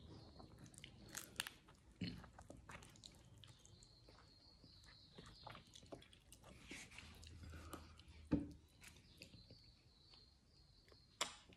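Close-up eating sounds: chewing, with small crackles and clicks as flatbread is torn by hand. A single sharp knock about eight seconds in, and another near the end.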